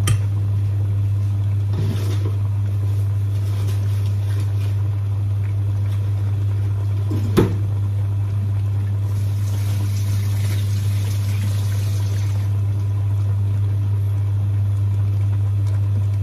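Steady low hum throughout, with water running from a kitchen tap for a few seconds past the middle and a single sharp knock about seven seconds in.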